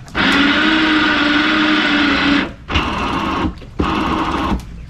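Electric winch motor hoisting the dinghy's stern davit line, whining steadily for about two seconds, then in two shorter stop-start bursts. The line has jumped off its sheave and is wedged between the sheave and its bracket, so the hoist sounds off.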